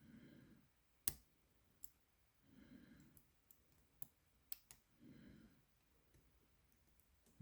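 Small metal clicks of a lock pick and improvised tension tool working in a padlock's tiny keyway, irregular and sparse, the sharpest a little over a second in. Soft breaths come about every two and a half seconds between them.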